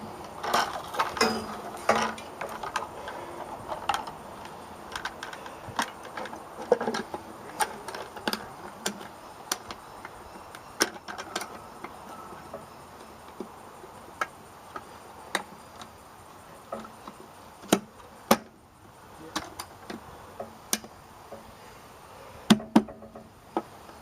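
The Sylvania Urban street light's cover being fitted back on: irregular sharp clicks and knocks from handling and fastening it, with a few louder knocks near the end, over steady background noise.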